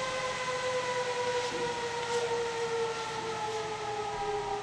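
A steady whine with several overtones, slowly falling in pitch the whole time, like a motor-driven rotor winding down.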